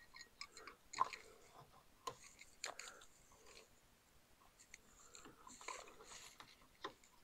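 Faint rustling and a few scattered light clicks of an accessory wiring lead being worked by hand up through a motorcycle's frame.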